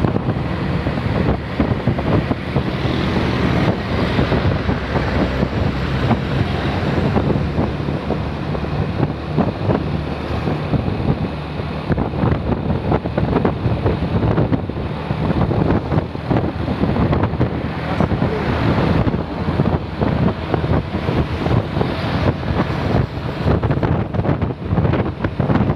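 Wind buffeting the microphone over a vehicle engine running.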